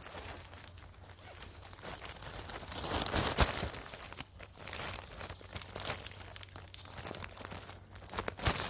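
Dry moss, twigs and leaves crackling, crunching and tearing as they are pulled up and handled, in an irregular stream of small cracks that is loudest a little after three seconds in.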